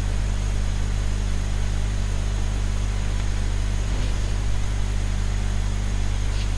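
Steady low electrical-sounding hum with an even hiss: the recording's background noise. Near the end, a faint short scratch of a pen on paper.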